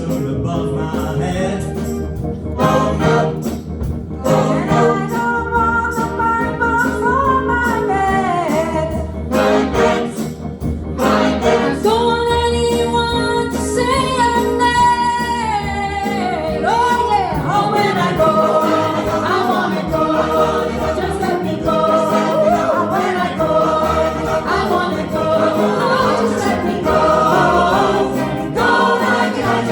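Choir singing a gospel song in harmony, several voices holding chords together.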